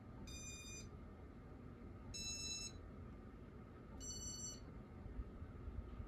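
Casablanca Inteli-Touch ceiling fan's electronic control beeping as it runs through its demo mode. There are three half-second beeps about two seconds apart, each a little higher in pitch, over a steady low rumble.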